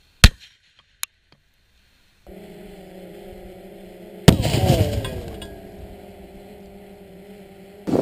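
Claymore mine filled with plastic explosive detonating, heard from two cameras: a very loud sharp blast about a quarter second in with a fainter crack a second in, then, over a steady hum, a second loud blast about four seconds in. Falling whistles trail off after it as the top of the steel T-post and other fragments fly away.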